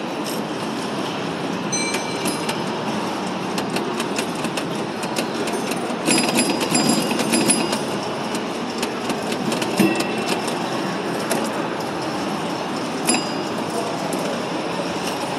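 Antique pinball machine in play: continuous clattering and rattling, full of sharp clicks and a few short bell-like dings. It gets louder about six seconds in, with single sharp knocks near ten and thirteen seconds.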